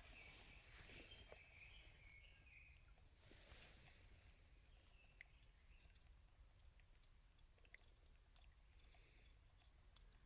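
Near silence with faint bird chirps in the first couple of seconds, then scattered faint small clicks.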